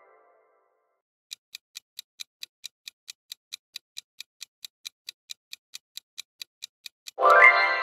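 Clock-style countdown ticking sound effect, about four to five even ticks a second, starting about a second in. Near the end a loud ringing musical sting cuts in and begins to fade.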